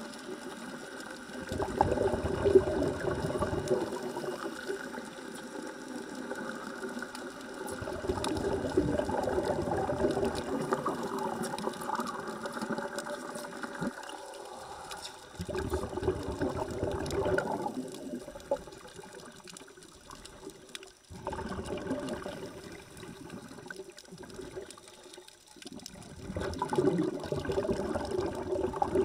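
Heard underwater: a scuba diver's exhaled regulator bubbles rushing in five bursts a few seconds apart, with the fine crackle of an underwater wet-welding arc between them.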